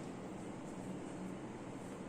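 Steady low hum with a hiss over it: room background noise.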